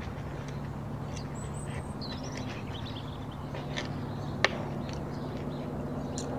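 Knives and forks clicking and scraping against a wooden board and plate while cutting grilled meat, with one sharp click about four and a half seconds in. Birds chirp faintly over a steady low hum.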